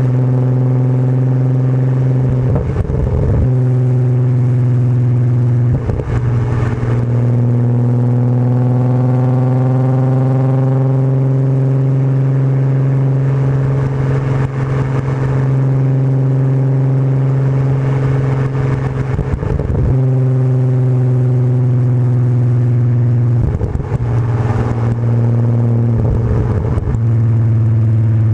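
Volkswagen VR6 exhaust, recorded close up by a lav mic, droning steadily under cruising load; its pitch rises a little partway through and then holds. Several brief rushes of noise cut across it at irregular intervals.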